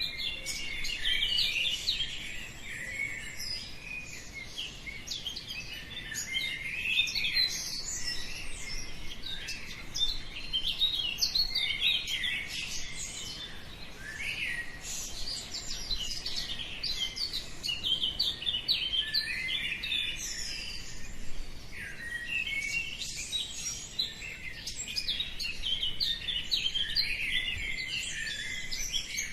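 Many small birds chirping and singing at once, short overlapping calls and trills from several birds, continuing without a break.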